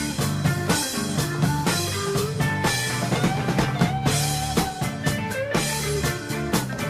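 Rock background music with a steady drum-kit beat, bass and guitar.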